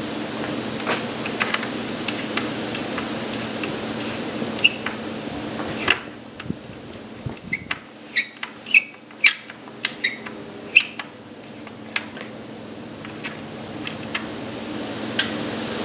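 Screwdriver working the screws of a licence plate on a motorhome's rear wall: scattered sharp metal clicks and short squeaks, thickest between about six and eleven seconds in, over a steady low hum.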